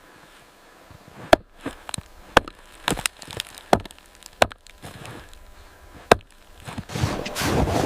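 A series of sharp, irregularly spaced wooden knocks like chopping, about six strikes, followed near the end by a dense crackling rustle.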